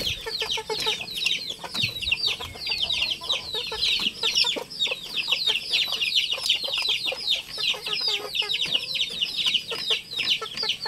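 Chickens peeping: a steady stream of short, high, falling chirps, about five a second. Under them come faint clicks of a gamecock pecking feed pellets from a plastic bowl.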